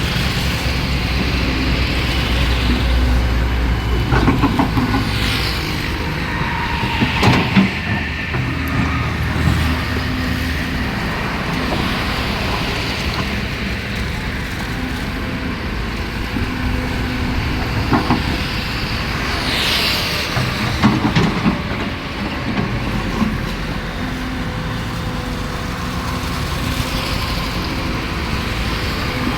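Kobelco hydraulic excavator's diesel engine running steadily while it works, with occasional sharp clanks and knocks and a few brief whines.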